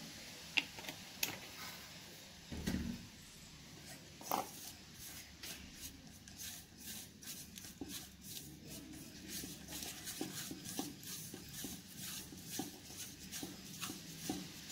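Fingers rubbing and scraping spice powder and oil around a stainless steel pot, mixing them into a paste, in a quick run of soft strokes. A few sharp knocks come in the first few seconds.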